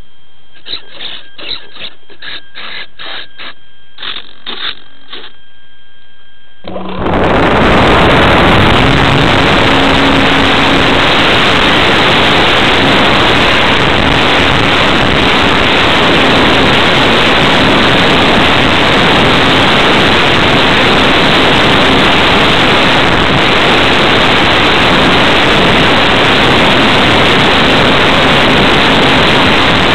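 A run of short clicks, then about seven seconds in the electric motor and propeller of a ParkZone T-28 Trojan RC plane come on at full power. Heard close from the plane's onboard camera, this is a loud, steady rushing noise with a low hum underneath, running through the takeoff roll on grass and the climb.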